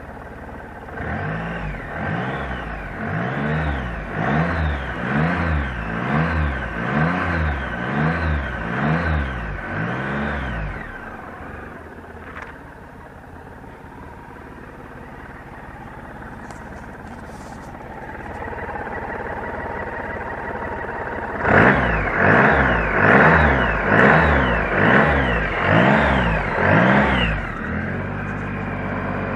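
Honda Gold Wing 1800's flat-six engine revved in a string of quick throttle blips, about one a second, then idling for about ten seconds. A second, faster run of blips follows, and it settles back to idle near the end.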